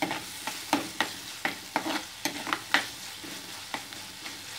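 Metal spoon stirring and scraping against an earthenware pot, knocking about two to three times a second, over the steady sizzle of tomatoes, garlic and spices frying in coconut oil.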